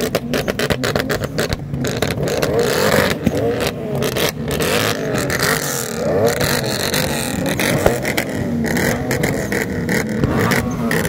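Several car engines revving hard together through their exhausts, pitch sweeping up and down in overlapping revs, with a rapid series of sharp exhaust pops and cracks through the first four seconds or so.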